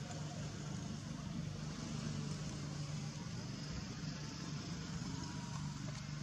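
A steady low motor hum with an even hiss of outdoor background noise, unchanging throughout.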